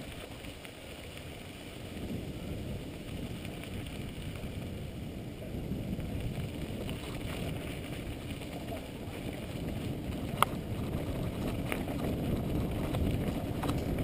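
Wind buffeting a GoPro's microphone over the rumble of mountain bike tyres rolling on a dirt trail, growing louder toward the end as the bike picks up speed, with a single sharp click about ten seconds in.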